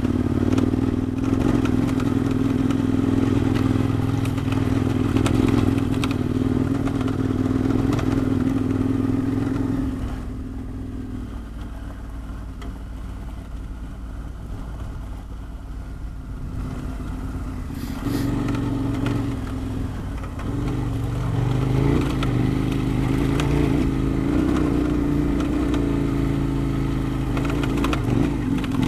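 KTM 1090 Adventure R's V-twin engine running under throttle, easing off about ten seconds in and pulling again about eight seconds later, with scattered clatter over the gravel.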